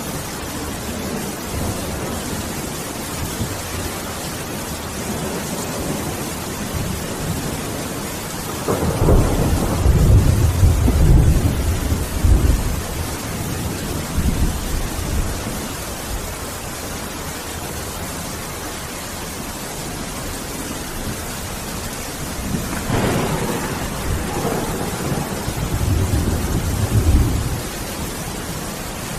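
Steady heavy rain with thunder: two long low rumbles of thunder, one about a third of the way in and another near the end.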